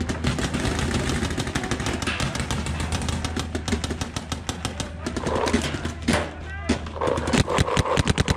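Rapid paintball marker fire: a dense, irregular run of sharp pops. From about five seconds in, raised voices shout over it.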